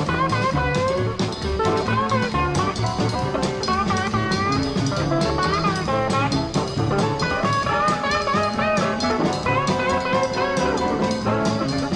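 Live electric blues band playing an instrumental passage: an electric guitar plays lead lines with bent notes over a steady drum beat and bass.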